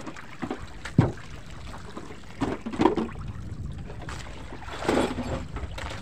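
Water splashing against the hull of a wooden outrigger boat, twice, near the middle and near the end, over steady wind, with one sharp knock on the wooden boat about a second in.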